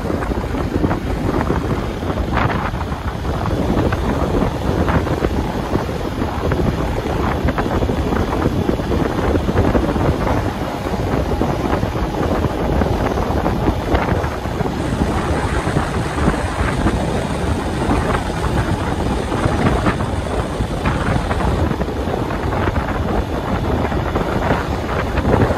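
Small waterfall pouring: a steady, loud rush of falling and splashing water.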